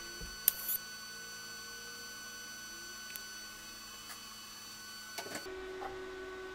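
TIG welder tack-welding a fuel bung into a gas tank's domed end cap. A sharp crack as the arc strikes about half a second in, then a faint steady electrical hum with a high whine that stops about five and a half seconds in. A few light clicks of handling follow.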